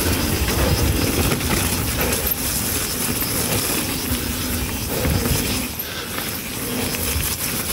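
Mountain bike riding down a muddy downhill trail, heard from the bike-mounted action camera: a steady rush of wind and tyre noise with low rumble and light knocks and rattles from the bike.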